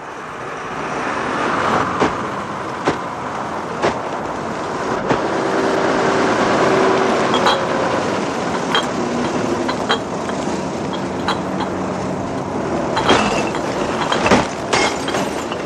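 Refuse lorry engine running as it draws up, growing louder over the first few seconds, with scattered clanks and knocks that bunch together near the end.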